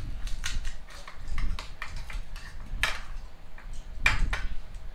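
Quick, irregular clinks and taps of steel spoons, tumblers and bowls on a table, mixed with crisp pani puri shells being cracked open by hand. A louder clatter comes about three seconds in and again about four seconds in.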